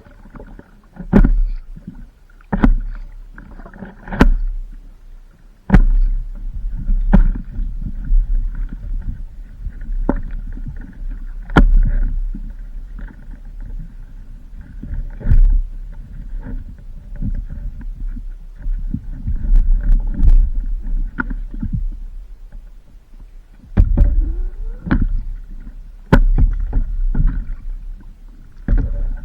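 Water slapping and sloshing around a paddleboard, with sharp knocks and slaps every second or two over a steady low rumble of wind and water on the microphone.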